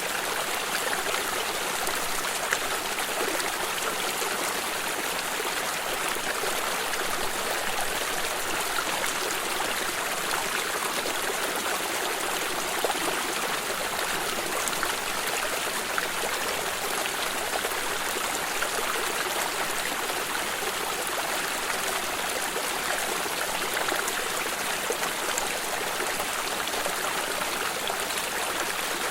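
A water stream running steadily, a continuous rushing hiss with a fine trickling, splashing texture.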